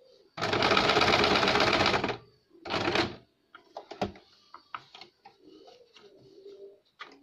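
Sewing machine stitching lace trim onto fabric: one steady run of about a second and a half, then a short burst a second later. After that come only soft clicks and rustles of the fabric being handled and repositioned.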